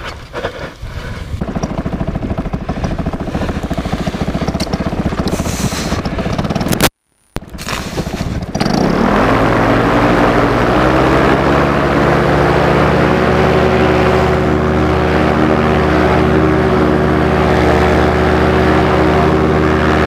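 Bailey paramotor engine running at a steady lower speed, with a brief silent dropout about seven seconds in. It then revs up to full throttle and holds a loud, steady high drone for the takeoff run and climb-out.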